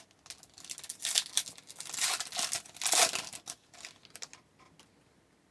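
A trading card pack's wrapper being torn open and crinkled by hand, a run of crackly rustles that dies away after about four seconds.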